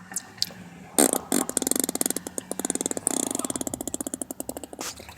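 A baby making fart sounds: a rapid sputtering buzz of many pops a second. It starts about a second in and lasts about four seconds.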